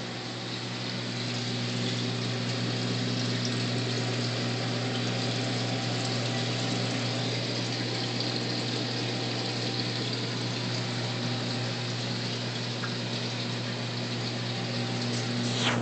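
Reef aquarium's circulation running: a steady rush of moving water over a constant low pump hum.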